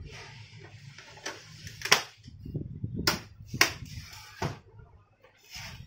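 Hard plastic clicks and knocks as the outer cover of a Canon LBP 2900B laser printer is pressed and fitted onto its frame, over a rustle of handling. About four sharp clicks, the loudest about two seconds in.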